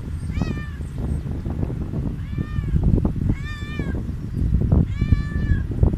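Hungry stray cat meowing for food, four separate short meows that each rise and fall in pitch, over a steady low rumble of background noise.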